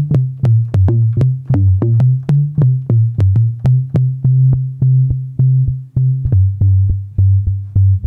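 Modal Electronics Cobalt5S synthesizer playing a preset: low bass notes that shift in pitch every second or so, pulsing in a steady rhythm of sharp, clicky attacks about four times a second.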